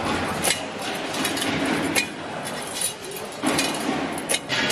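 Metal spokes clinking against each other and the hub as they are threaded by hand into a motorcycle wheel hub's flange, with a few sharp metallic clinks over a steady background haze.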